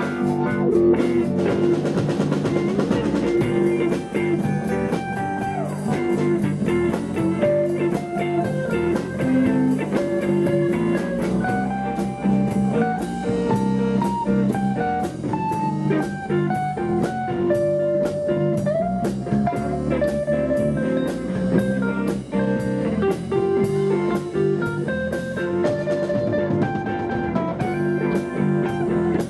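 Live blues band playing an instrumental passage: an electric guitar lead line with bent notes over electric bass and a steady drum-kit beat with cymbals.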